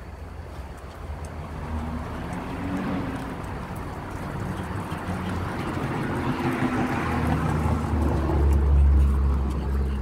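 Road traffic: a motor vehicle's low engine rumble that swells, loudest near the end.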